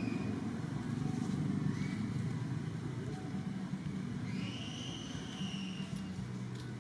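Steady low rumble of a running vehicle engine or traffic, with a steady hum near the end. About four seconds in, a high, drawn-out call rises and then holds for a second and a half, and shorter high rising notes come earlier.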